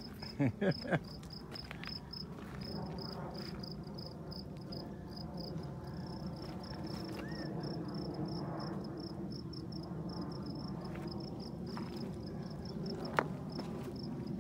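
A cricket chirping steadily, a high pulsed trill repeating a few times a second, over a low steady rumble. A few short, loud falling sounds come just after the start, and a single sharp click comes near the end.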